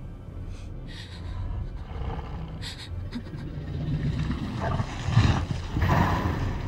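Heavy, deep breathing and snorting of a Tyrannosaurus rex (film creature sound effect), with the two loudest breaths about five and six seconds in. A few short clicks sound in the first three seconds.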